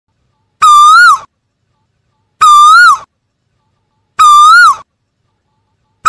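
Male Asian koel calling: three loud single-note whistled calls, each about half a second long and evenly spaced about two seconds apart. Each note holds level, then swells slightly and drops away at its end.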